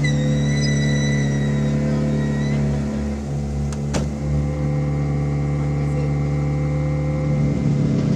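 Citroën DS3 WRC rally car's 1.6-litre turbocharged four-cylinder engine idling steadily. A high whine sits over it for the first two and a half seconds, and a single click comes about four seconds in.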